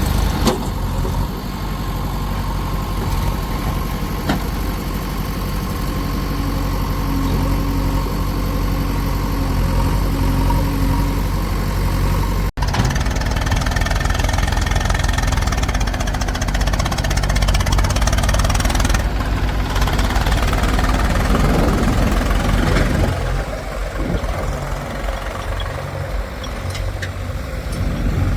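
Heavy diesel machinery, a backhoe loader and farm tractors, with engines running steadily. The sound drops out for an instant about halfway through.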